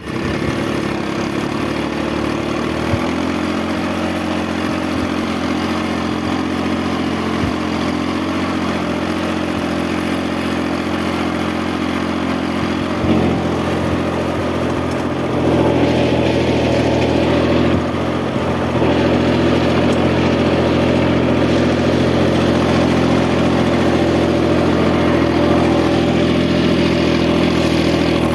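Small tractor's engine running steadily as the tractor drives through a crop field. The engine note shifts slightly a few seconds in and gets a little louder around the middle.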